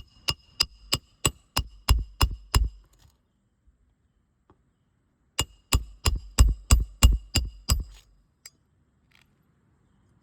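Roofing hammer striking the metal roof snake to drive roofing nails in under a shingle, two runs of about eight or nine blows at roughly three a second with a metallic ring. A pause of a few seconds separates the runs.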